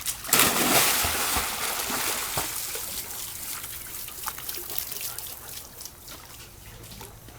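A dog splashing into a swimming pool: a loud splash about a third of a second in, then water sloshing and dribbling that fades over the next few seconds, with a few small splashes later.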